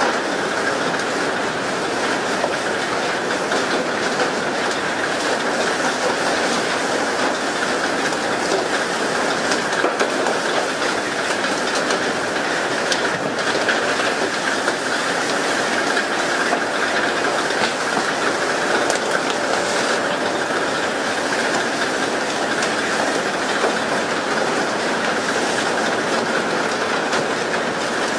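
Steady rushing, hissing water noise from the pole-and-line fishing boat's side spray jets showering the sea, mixed with water rushing along the hull. It keeps an even level throughout, with no separate knocks or splashes standing out.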